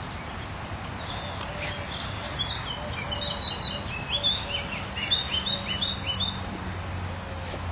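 A small songbird singing a quick run of short chirping notes, starting about a second in and stopping near the end, over a steady low background rumble.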